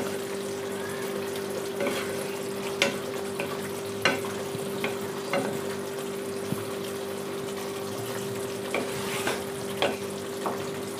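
Spatula stirring simmering egg curry in a non-stick kadai, knocking and scraping against the pan about ten times, over the steady bubbling of the gravy. A constant hum runs underneath.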